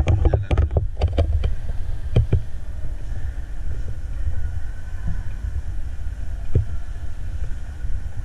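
Steady low rumble with a quick cluster of clicks and knocks in the first second, then single knocks about two seconds in and near six and a half seconds.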